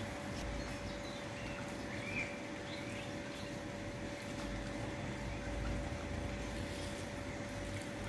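A few short, scattered bird chirps over a steady outdoor background hiss, with a constant faint hum and a low rumble that swells briefly in the middle.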